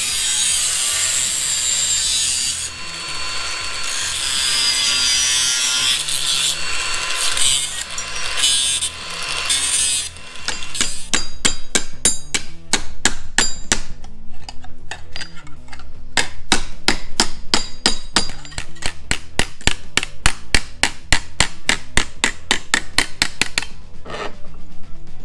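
Sheet steel being cut with a power tool, a harsh steady rasping for about ten seconds, then a fast, even run of sharp metal strikes, about four a second, as the steel patch panel is worked into shape.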